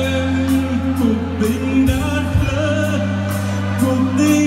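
Live band and singer performing a Vietnamese love song: a sung melody with vibrato over long steady bass notes and regular drum hits.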